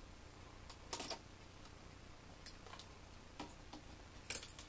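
Faint, scattered small clicks and ticks of small electronic parts being handled and worked apart by hand. There is a short cluster about a second in and a louder, sharper click near the end.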